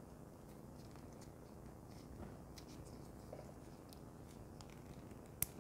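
Faint handling noises of a fitness tracker and its sports strap being fitted together: small scattered clicks and rubbing, with one sharper click near the end.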